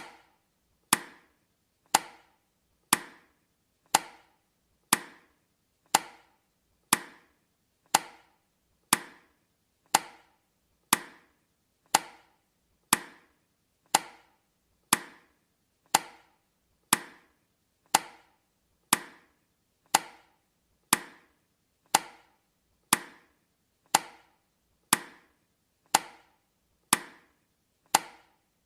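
Countdown timer's tick sound effect: a sharp, woody click once a second, each dying away quickly.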